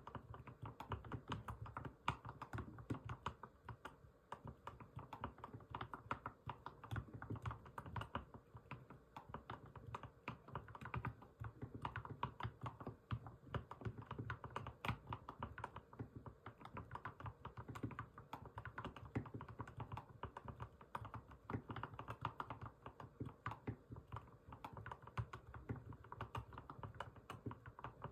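Continuous gentle typing on an Mstone Groove T87A mechanical keyboard with fully lubed 45 g Milky V2 switches and MA-profile keycaps: a steady, irregular stream of soft, deep keystroke clicks, several a second, with a crisp snap likened to breaking pebble-shaped chocolate.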